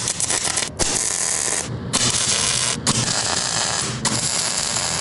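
Stick welding arc crackling and sputtering as tack welds are laid on steel tube railing, in runs of about a second with brief breaks between them.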